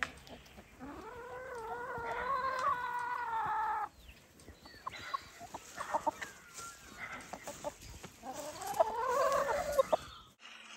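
Black chickens calling: a long drawn-out call lasting about three seconds, then a few short clucks, then a second rising call near the end.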